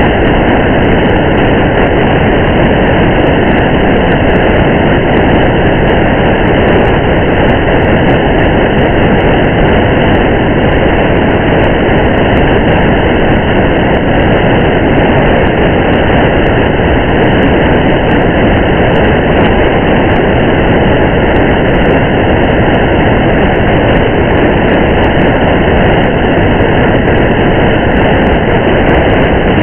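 Steady rain and the constant road rumble of a car driving on a wet highway: an even, dull hiss and rumble with scattered faint ticks.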